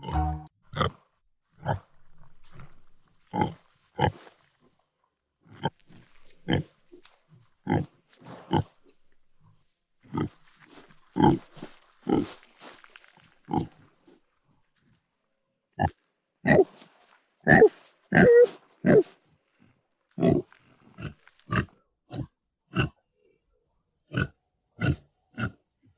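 Domestic pig grunting: a series of short, separate grunts with brief pauses between them, coming faster in a cluster about two-thirds of the way through.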